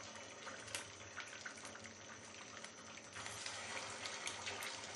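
Suji (semolina) kachoris frying in hot oil in a kadhai: a faint, steady sizzle with small crackling pops. It grows louder about three seconds in, as a second kachori goes into the oil.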